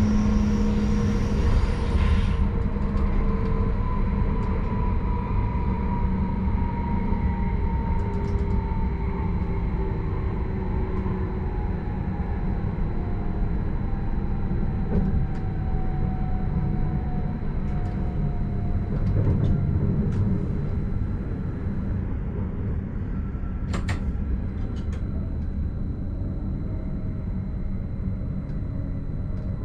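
Stadler RABe 515 "Mutz" electric multiple unit running on the rails, heard from the driver's cab: a steady rumble of wheels and running gear with an electric motor whine that falls slowly in pitch through the first half, as the train comes out of a tunnel toward a station. A few light clicks and one sharper click about three-quarters of the way through.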